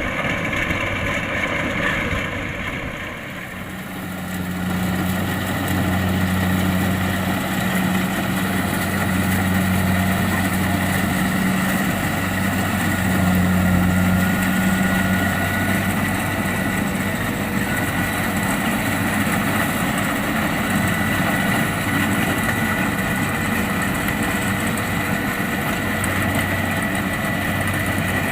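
Kubota DC-70 Plus rice combine harvester's diesel engine running steadily: a low hum with a steady high whine over it. The sound dips briefly about three seconds in, then comes back up and holds.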